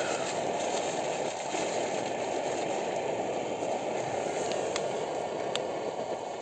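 Optimus Polaris multi-fuel camping stove burning with a steady low roar under a frying pan of bacon and rice, with a couple of faint ticks near the end.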